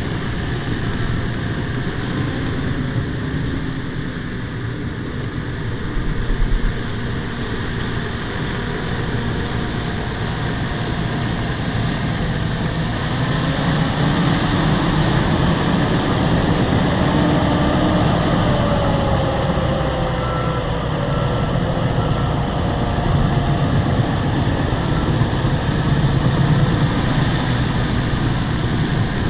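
Bulldozer's diesel engine running steadily while the machine works, getting a little louder about halfway through, with a brief low knock about six seconds in.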